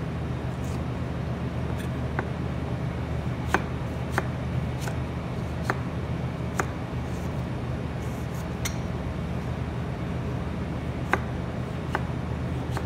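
A kitchen knife dicing a tomato on a plastic cutting board, giving about ten sharp, irregularly spaced knocks as the blade hits the board, over a steady low hum.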